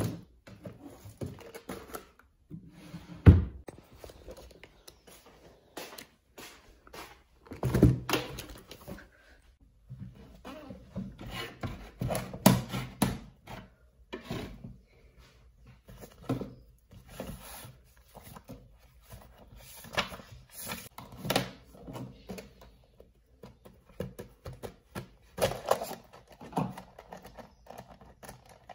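Irregular knocks, taps and rustles of small objects being handled in a small room, with a sharp thump about three seconds in.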